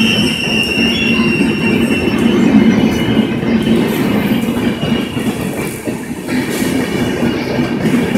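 LHB passenger coaches of a Rajdhani Express running past at speed: a steady rumble of wheels on rail, with thin high-pitched wheel squeal that is strongest at the start and fades about three seconds in.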